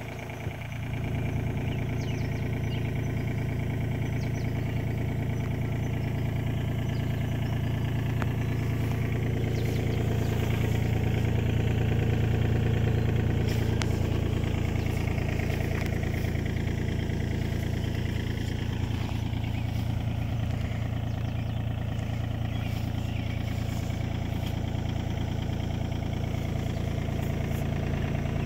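Komatsu PC35MR-2 mini excavator's diesel engine idling steadily, swelling slightly in loudness about ten seconds in and then settling back.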